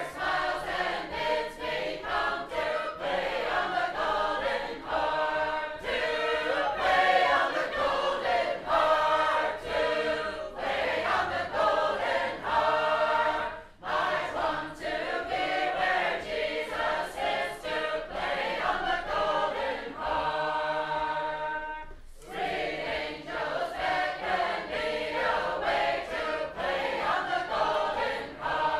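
Music of a choir singing, with two short pauses between phrases.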